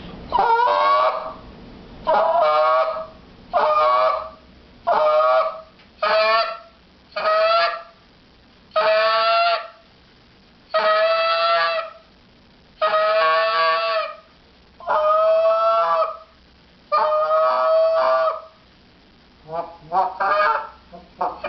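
Reed goose call blown as a string of drawn-out 'train' notes, each about a second long, that tail off at the end, about a dozen in a row with short gaps between. Near the end a few short, quick notes.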